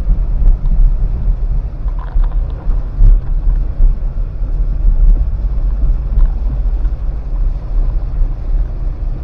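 Cabin noise of a car driving on a wet road in heavy rain: a steady low rumble from the road and engine under a faint hiss of rain on the car.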